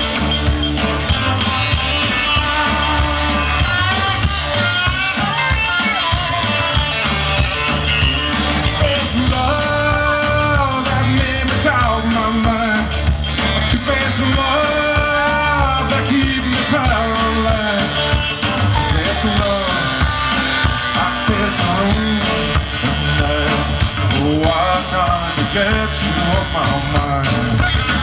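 Live rock band playing a song, with electric guitar and saxophone, and a man singing over the band.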